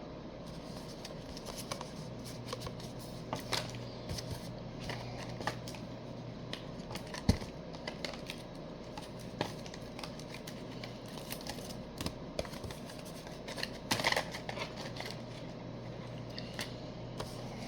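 Paper and playing cards being handled: soft rustles, taps and small clicks at irregular intervals, over a steady low hum.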